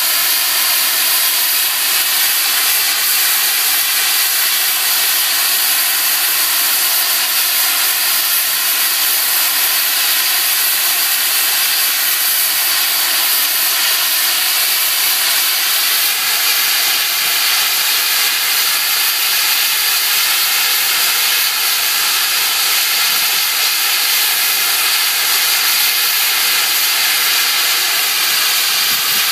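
Steam locomotive SECR C Class 0-6-0 No. 592 standing with steam up, giving a loud, steady hiss of escaping steam.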